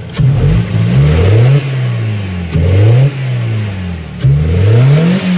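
BMW E87 1 Series engine revved three times, each rev rising quickly and falling back to idle, with the airbox lid off so the intake noise is loud.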